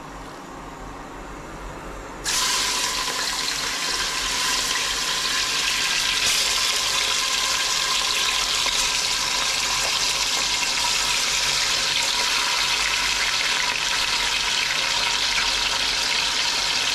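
Seasoned beef chunks sizzling in hot oil in a stainless pressure cooker. The sizzle starts suddenly about two seconds in, as the meat goes into the pot, and then carries on loud and steady as the beef fries.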